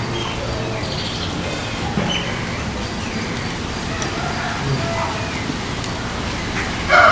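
Steady background hiss with faint, scattered short calls. Right at the very end a rooster starts crowing loudly.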